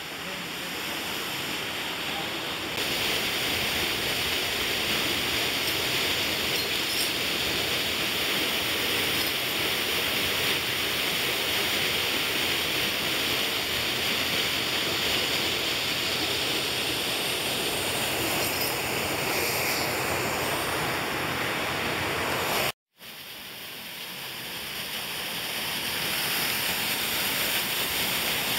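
Steady rush of flowing creek water, an even hiss with no rhythm. It drops out for a moment about three-quarters of the way through, then fades back in.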